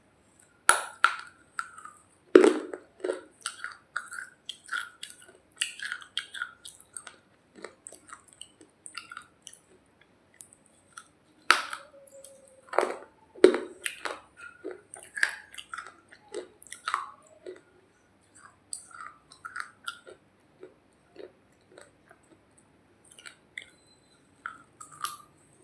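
Close-up biting and chewing of a dry, hard roti: a few loud crunching bites between long stretches of quieter, crackly chewing.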